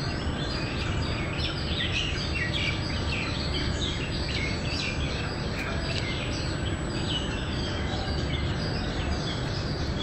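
Birds chirping in quick, overlapping succession: many short, high, downward-sliding calls, over a steady low background rumble.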